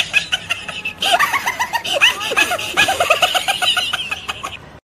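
High-pitched laughter, shrill and cackling, with a rapid run of short laughs in the second half, cut off abruptly just before the end.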